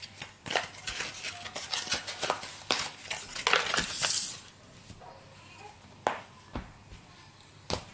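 Rustling and light clicks and taps from a pair of children's leggings being handled and unfolded on a table: a run of small sharp clicks in the first half, a longer rustle about four seconds in, then only a couple of faint clicks.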